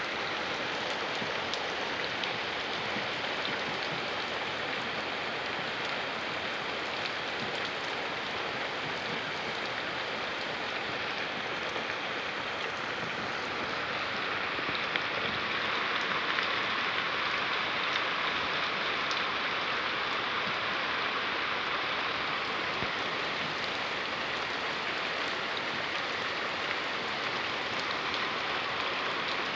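Torrential rain pouring down steadily, growing a little heavier for several seconds around the middle.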